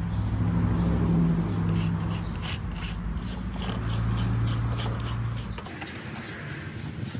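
Irregular scraping and clicking as dirt and debris are cleaned out of an old HVAC condensate drain pan, over a low hum that stops about five and a half seconds in.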